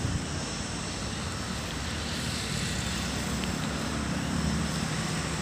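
Steady low background rumble, with a faint hum held through it.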